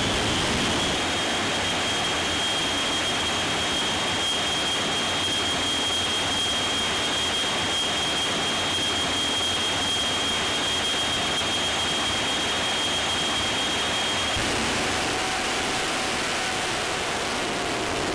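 Jet engines of jet-powered semi trucks running with their afterburners lit: a loud, steady rushing noise under a high whine. The whine stops about 14 seconds in, and a lower steady tone comes in after it.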